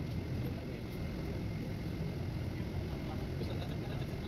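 Steady low rumble of an airport apron shuttle bus driving, heard from inside, with a faint thin steady whine above it.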